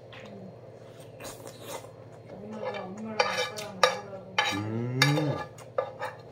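Spoon and chopsticks clinking and scraping against a coated frying pan while someone eats from it, with a handful of sharp clinks spread through. A man's low hummed murmur comes twice, the second one louder, near the middle and about five seconds in.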